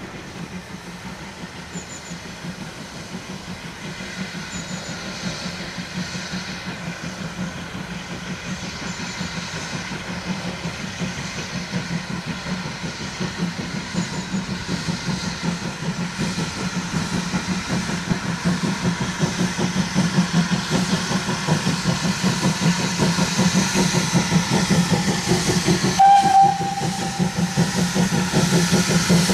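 Steam tank locomotive approaching under steam, its rapid exhaust beats growing steadily louder. It gives a short whistle blast near the end.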